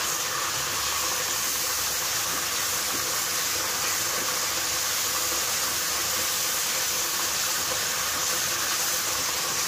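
Fried onions and spice paste sizzling steadily in hot ghee and oil in a karahi.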